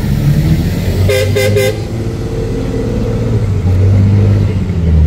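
Low, steady engine rumble of an 8x8 Mercedes-Benz trial truck working over rough ground, swelling a little about four seconds in. A vehicle horn gives three quick toots about a second in.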